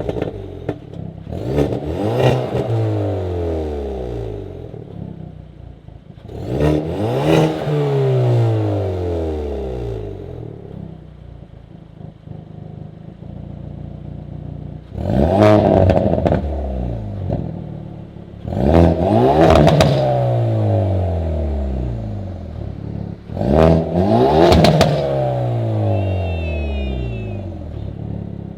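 Hyundai Veloster N's turbocharged 2.0-litre four-cylinder, fitted with a catless downpipe, revving hard about six times. Each rev climbs quickly and then falls back in pitch over a couple of seconds.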